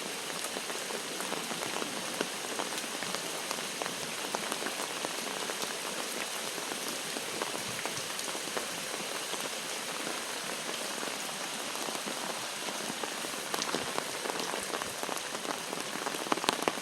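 Steady hiss of falling and running water dotted with small drip ticks: rain and storm runoff pouring out of drainage outflow pipes.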